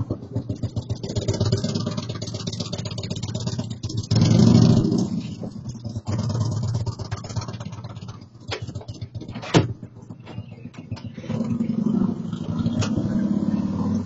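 Motorcycle engine running and revving, picked up by a doorbell camera's microphone. A louder rev comes about four seconds in, and a single sharp click is heard near ten seconds.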